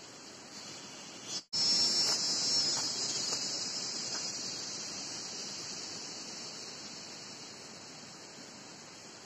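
Insects buzzing steadily in a high-pitched chorus, cutting out for an instant about a second and a half in, loudest just after and slowly fading.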